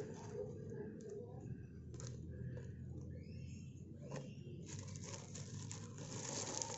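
Faint handling of a cardboard mouse pad box wrapped in torn plastic film: a few light taps, then denser rustling and crinkling of the plastic over the last couple of seconds.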